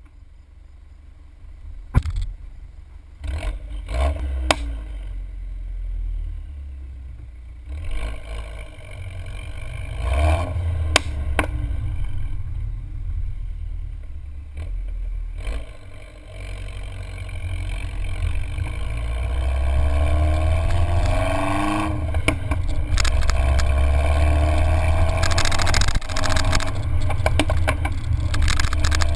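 MINI Cooper R56 (184 hp) with a John Cooper Works exhaust, heard at its twin tailpipes: the engine runs with a low rumble, then the car accelerates, pitch rising in repeated sweeps and getting louder in the second half, with wind and road noise. A few sharp knocks come in the first half.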